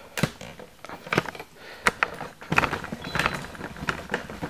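Handling noise: a few separate sharp knocks and clicks, then a busier stretch of clatter and rustle about two and a half seconds in, as the camera is picked up and moved.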